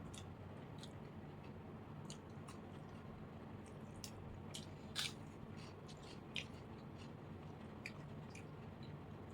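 Close-miked chewing of a mouthful of water-soaked panta bhat mixed with fried potato and chanachur: wet, squishy mouth sounds with scattered short crunches, the sharpest about five seconds in and another a little after six seconds.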